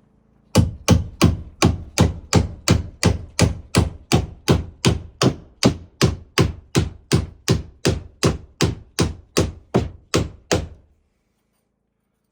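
A hammer striking wood in a steady, even rhythm, about 28 blows at nearly three a second, slowly tapering in strength before stopping abruptly.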